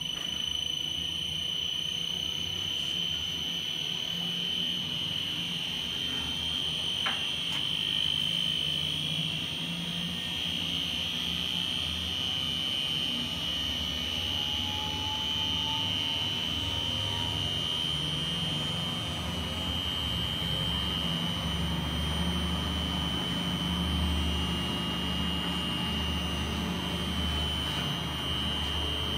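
WAM mixer running empty, its electric motor and gear reducer turning the paddle agitator. A steady high whine sits over a low hum that grows stronger in the second half.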